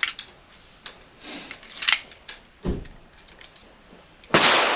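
A few light metallic clicks and knocks of handling a pistol, then near the end a single .45 ACP shot from a Springfield 1911 pistol, sharp and loud with a long fading echo.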